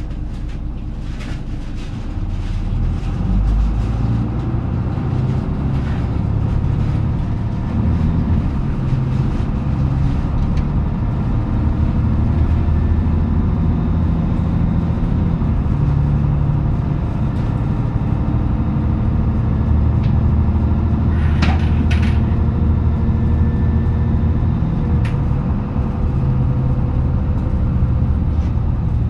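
Isuzu Journey J (KK-MJ26HF) small route bus driving, heard from inside the cabin: its diesel engine gets louder a few seconds in and its note steps up and down in pitch as it pulls away. A short hiss comes about two-thirds of the way through.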